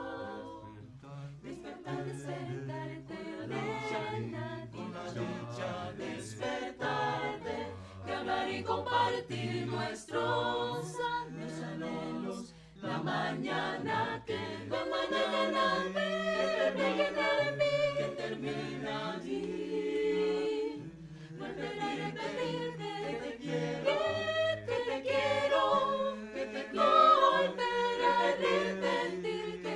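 Mixed chamber choir singing a cappella, men's and women's voices in several parts at once.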